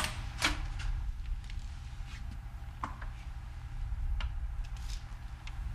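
Steady low hum of room tone, with a few faint knocks and clicks scattered through it, the strongest right at the start and about half a second in.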